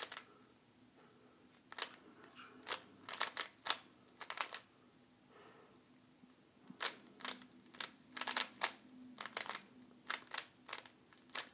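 Plastic Rubik's Cube layers being twisted: quick clacking turns in irregular bursts, with a short pause about halfway through.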